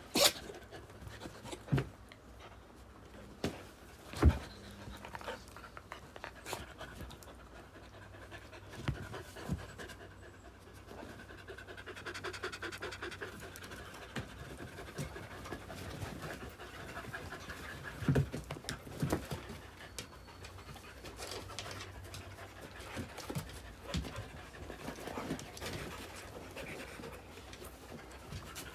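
Dogs panting while they move about and play on soft dog beds, with scuffling and a few sharp thumps, the loudest about four seconds in and two more around eighteen and nineteen seconds in.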